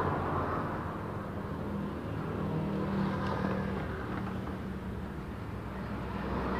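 Background road traffic: a steady low rumble with a hiss that swells and eases, and one light tap about three seconds in.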